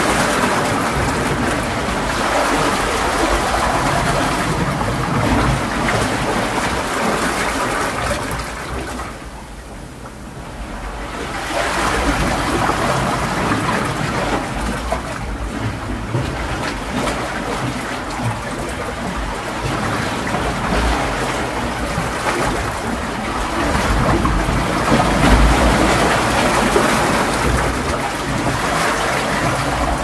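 Ocean surf: waves breaking and washing in as a continuous rushing. It eases off about ten seconds in, then builds again.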